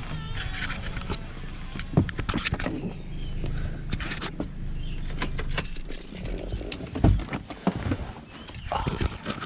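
A steady low vehicle-engine rumble that cuts out about six seconds in, with keys jangling and a run of clicks and knocks, and one heavier thump shortly after the rumble stops.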